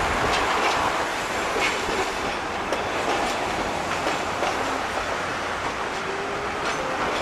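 Hiroden 900-series vintage tram passing close by on street track: steady running noise of the car with irregular sharp clicks as its wheels cross rail joints.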